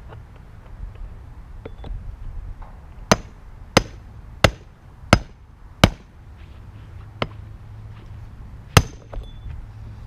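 Hammer striking the hinge of a metal safe to break it off. A run of five sharp metal blows comes about two-thirds of a second apart, then after a pause one more hard blow, with a couple of lighter taps between.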